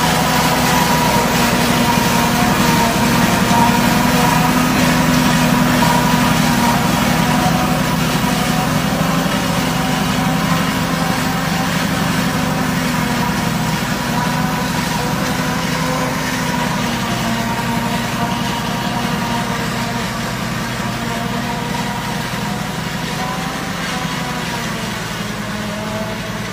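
Case IH JX100 tractor's diesel engine running steadily under load, driving a tractor-mounted three-row corn silage harvester as it cuts and chops standing corn and blows the silage out its spout. A continuous loud machine hum with steady whining tones from the harvester.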